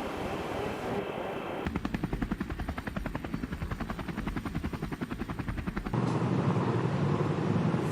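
Helicopter rotor chopping in an even beat of about seven to eight pulses a second, between stretches of steady rumbling noise. The chopping starts suddenly after about two seconds and cuts off abruptly near the end, where a deeper rumble takes over.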